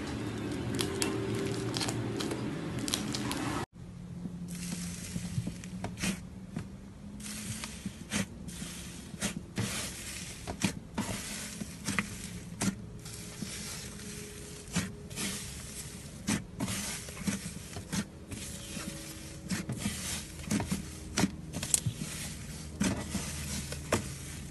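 Thick slime squeezed and poked by fingers, making irregular small crackling pops and squelches. The sound cuts off suddenly about four seconds in as one slime clip gives way to another.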